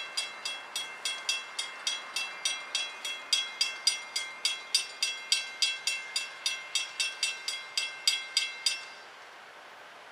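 Railroad grade-crossing warning bell ringing in quick, even strikes, about four a second, while the crossing gates come down. It stops suddenly about nine seconds in, as the gates reach their lowered position.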